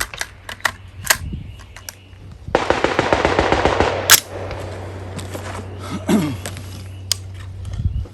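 Rifle gunfire: a few sharp single shots, then a dense rapid string of shots about two and a half seconds in, ending in the loudest shot at about four seconds, with scattered shots after.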